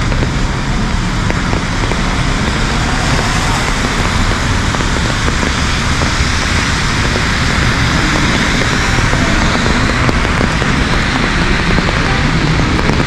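Heavy rain falling steadily on a city street, with traffic hissing on the wet road.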